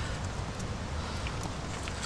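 A small blade scraping and tapping canned corned beef out of the tin onto rice in a metal mess tin: a few soft clicks and scrapes about halfway through and near the end, over a steady low background noise.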